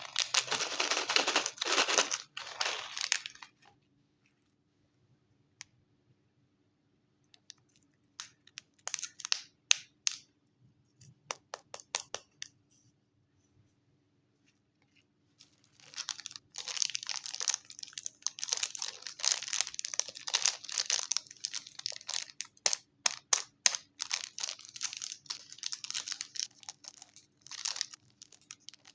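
Chocolate wrapper crinkling and tearing as it is unwrapped: a dense run of crackles for the first few seconds, a few scattered rustles and clicks in the middle after a lull, then a long stretch of steady crinkling from about halfway through.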